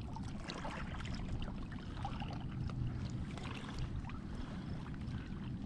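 Steady rush of a fast-flowing river current, with a few faint ticks over it.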